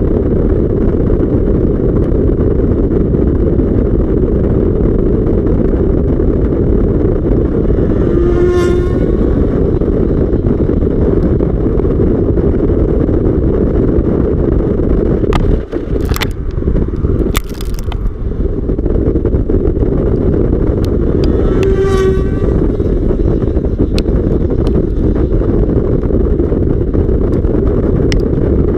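Kawasaki ZX-6R inline-four sport bike running, heard through heavy wind noise on the microphone, with two short higher engine notes about 8 s and 22 s in. A few sharp clicks and knocks come between about 15 and 18 seconds.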